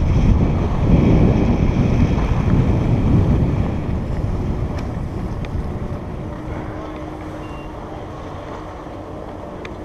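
Wind rushing over a helmet camera's microphone as a skier glides downhill, loud at first and dying away from about four seconds in as the skier slows to a stop. A faint steady hum remains over the quieter second half.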